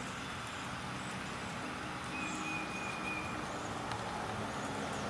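Outdoor ambience: a steady hiss with a low hum of distant traffic underneath. A faint, high, steady whistle sounds about two seconds in and lasts just over a second.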